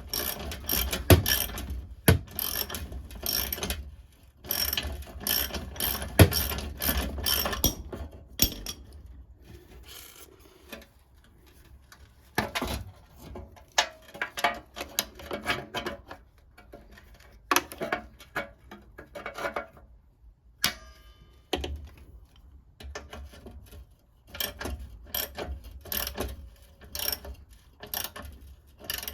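Hand socket ratchet clicking in quick runs of strokes with short pauses between. It is working a rusted VW Beetle rear bumper bolt that will not undo: the bolt keeps spinning in place.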